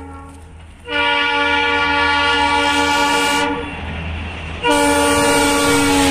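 WDP4 diesel locomotive's horn sounding two long blasts as the train approaches: the first starts about a second in and lasts about two and a half seconds, and the second starts a second later and runs on. A steady low rumble from the passing train lies underneath.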